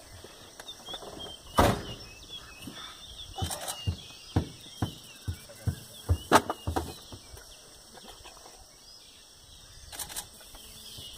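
Birds chirping in the forest, a steady patter of small high calls, over a series of sharp clicks and knocks. The clicks are scattered through the first seven seconds or so, with the loudest about a second and a half in and again around six seconds in.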